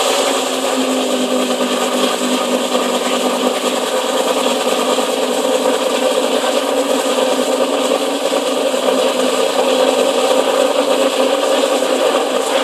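Porsche Carrera GT's V10 engine idling steadily through its exhaust just after start-up, with no revving.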